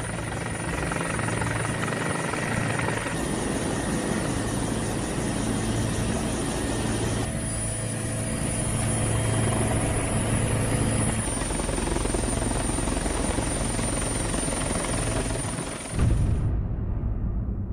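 Helicopter in flight, heard from inside the cabin: steady rotor and engine noise. About sixteen seconds in it cuts off and low, dark music begins.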